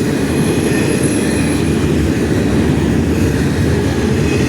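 Norfolk Southern intermodal freight train rolling past close by: a steady, loud low rumble of the cars, with faint thin high squeals.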